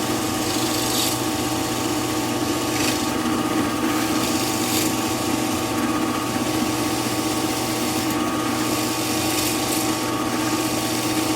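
Drill press running steadily, its 20 mm bit boring into 3/4-inch plywood, with a rasping cut that swells several times as the bit is fed into the wood.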